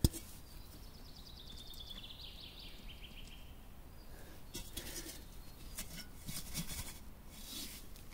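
Quiet outdoor background: a sharp click right at the start, then a faint bird trill that steps down in pitch over about three seconds, starting about half a second in, followed by scattered soft crunches and rustles like footsteps.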